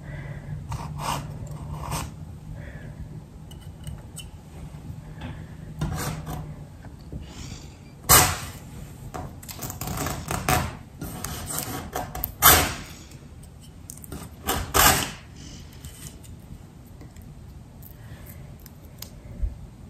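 Paintbrush bristles scratching across wood paneling in several short strokes, the loudest about a third of the way in and twice more later.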